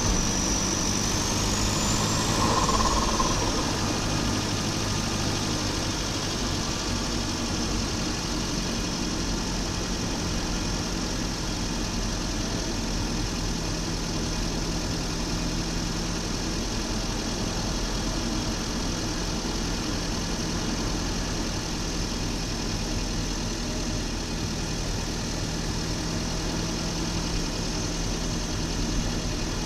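Volvo 940 Turbo's B230FT turbocharged four-cylinder engine idling steadily. A high whine dips, rises and fades out in the first few seconds.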